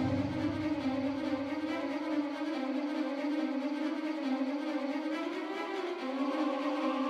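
A long, sustained eerie tone that wavers slowly in pitch, glides upward about five seconds in and drops back down at six seconds.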